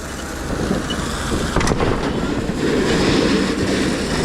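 A vehicle engine runs steadily under a broad rushing noise, with one sharp knock about a second and a half in.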